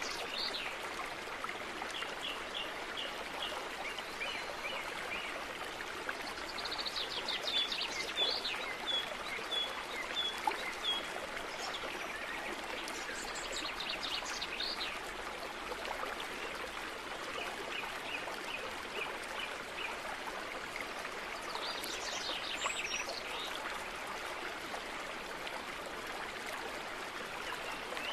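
Steady running water, with a bird calling in series of quick short chirps every few seconds.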